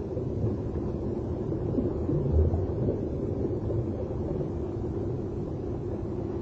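Steady, rumbling wind-like noise with no clear pitch, swelling slightly a little past the middle.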